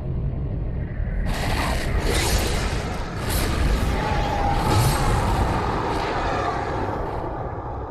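Film soundtrack sound effects: a steady low rumble, joined about a second in by a series of short, sharp noisy bursts, four or five of them over the next few seconds.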